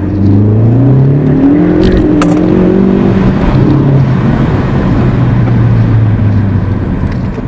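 Ford Focus ST's turbocharged 2.0-litre EcoBoost four-cylinder, Stage 1-tuned, pulling hard under full throttle in second gear, heard from inside the cabin. The engine note climbs over the first three seconds or so, then holds a steadier, lower pitch.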